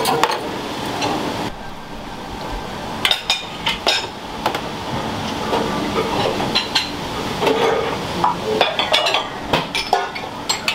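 Dishes and kitchen utensils clinking and knocking irregularly in a ramen shop kitchen, over a steady background hum.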